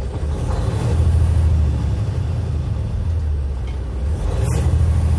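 Detroit DD15 straight-six turbo diesel in a Freightliner Cascadia being revved up from idle, its rumble rising about a second in and again near the end. It runs without knocking or odd noises after the cam housing repair.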